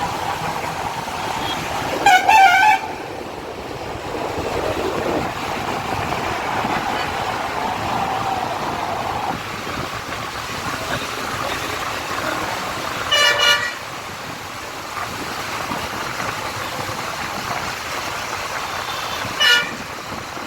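Road traffic running steadily, with vehicle horns honking three times: a loud short honk about two seconds in, another about thirteen seconds in, and a brief one near the end.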